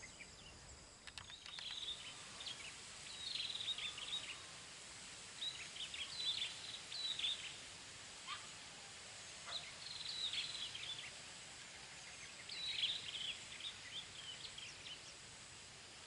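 Small birds chirping in short bursts of quick falling notes, a burst every two or three seconds, over a faint steady outdoor hiss with a thin high whine.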